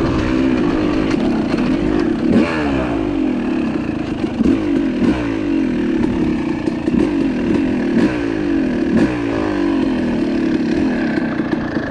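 Yamaha YZ250 two-stroke single running through an FMF Gold Series Fatty expansion-chamber pipe as the bike is ridden, the revs rising and falling over and over as the throttle is worked. Scattered clatter sounds over the engine.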